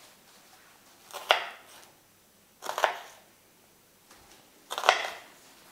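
Knife chopping onion on a cutting board in three short bouts, each about a second apart from the next.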